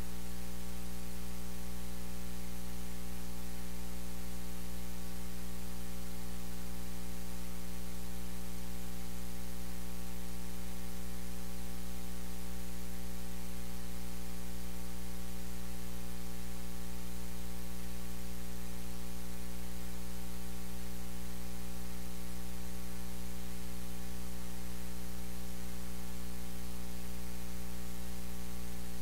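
Steady electrical mains hum: a low hum with a buzzy stack of evenly spaced overtones over a constant hiss, unchanging, with no other sound heard over it.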